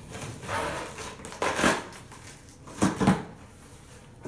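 A cardboard shipping box being opened and its packing handled: several noisy crinkling, scraping bursts, loudest about a second and a half in and again just before three seconds in.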